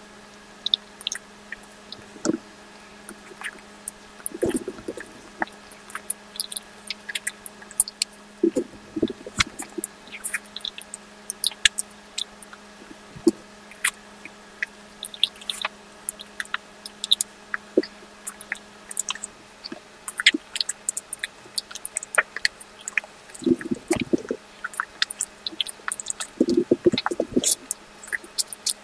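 Close-miked mouth sounds of eating ice cream: scattered wet clicks and smacks throughout. There are short bursts of chewing about four, nine, twenty-four and twenty-seven seconds in.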